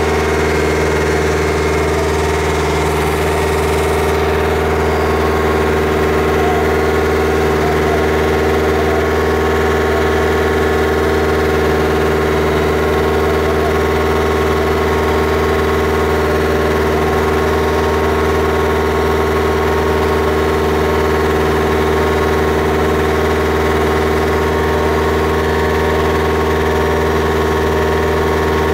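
Engine of a Techno Drill TD308 piling and drilling rig running steadily, with a constant low hum and no change in speed.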